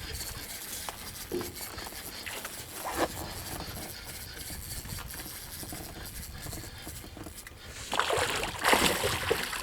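Water sloshing against a small boat, with a couple of light knocks, then a burst of splashing near the end as a hooked fish is brought up to the boat.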